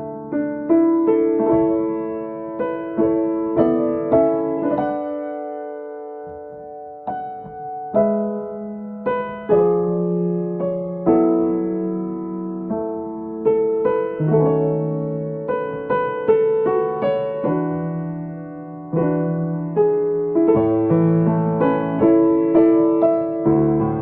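Piano-toned keyboard playing a gentle melody over bass chords, each note struck and fading. About five seconds in a chord is held and dies away, then the playing starts again about three seconds later.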